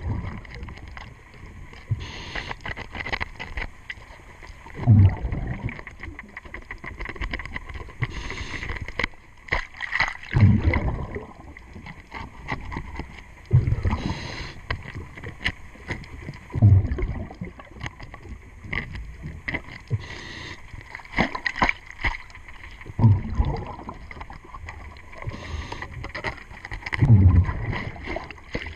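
A diver's regulator breathing underwater: a rumbling gush of exhaust bubbles every three to six seconds, with a fainter hiss between them. Small clicks and scrapes come from a hand tool working on the boat's zinc anode.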